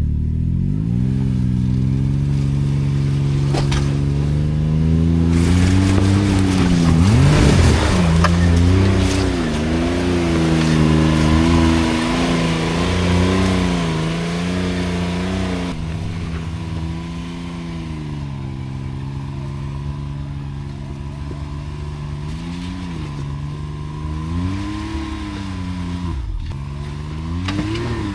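Off-road side-by-side engine revving up and down at low speed, its pitch rising and falling repeatedly as it works over the trail. A rushing hiss joins it for several seconds in the middle.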